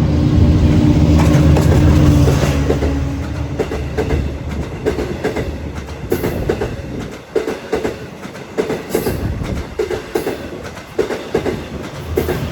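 Train passing: a steady low drone from its power equipment for the first few seconds, fading, then wheels clicking over rail joints in a long uneven run of clicks.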